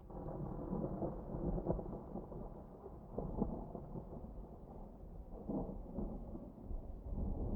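Rolling thunder: a long low rumble that swells in at the start, with sharper crackling peaks about one and a half, three and a half and five and a half seconds in, then builds again near the end.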